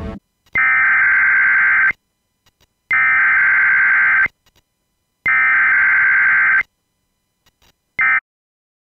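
A buzzy electronic tone sounding in three long pulses, each about a second and a half with a gap of about a second between them, then a fourth pulse cut off after a fraction of a second.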